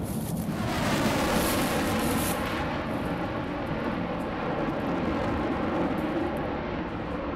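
Airplane engine noise, a dense steady drone that swells in about half a second in and holds.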